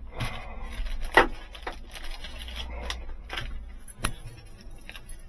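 Keys and small tools being handled and put away: a handful of separate clinks and knocks, the loudest about a second in.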